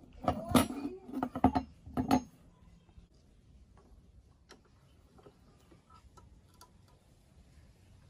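Rusty steel tool parts clinking and knocking together as they are handled: a handful of sharp metal clinks in the first two seconds, then only a few faint ticks.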